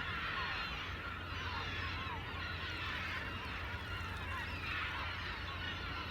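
A flock of seagulls calling over one another in a dense, unbroken chorus of short cries, over a low steady rumble.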